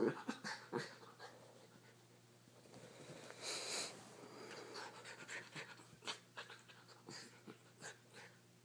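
Schnauzer panting and snuffling as it play-fights with a kitten, with soft scuffles and rustles against a fleece blanket. A longer breathy huff comes about three and a half seconds in.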